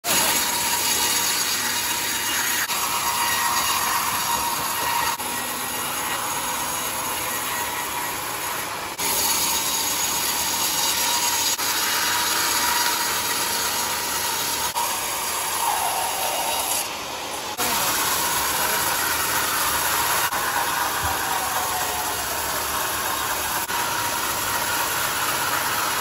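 Homemade horizontal band sawmill cutting through a large mahogany log: the band blade and machinery run with a loud, steady noise and a thin high whine, dipping briefly twice.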